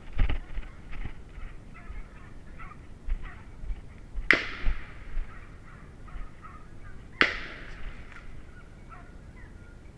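Two gunshots about three seconds apart, each echoing away: a hunter's shots at a driven wild boar. Hunting hounds bay in the background.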